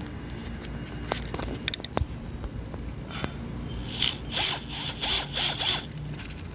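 Plastic speaker adapter being worked onto a 6x9 car speaker: a few sharp clicks, then a run of quick rasping strokes about four seconds in.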